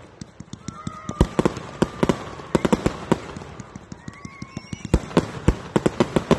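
Consumer aerial fireworks firing: an irregular run of sharp bangs and cracks from tubes launching and shells bursting, often several a second. Faint thin whistling tones sound twice, about a second in and again after four seconds.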